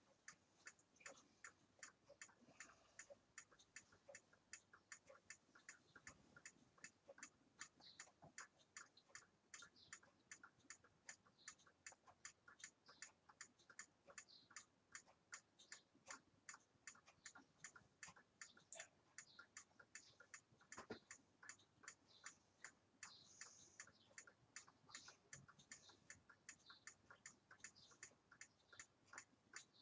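Wall clock ticking steadily in a quiet room, with a single soft knock about two-thirds of the way through.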